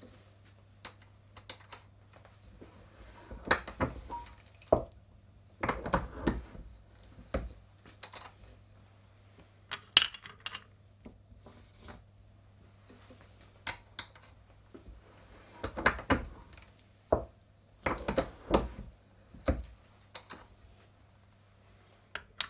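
Fired brass rifle cases being full-length resized and deprimed in a reloading press: irregular clusters of metallic clinks and knocks as cases are handled and the press is worked, with louder groups around 4, 6, 16 and 19 seconds in.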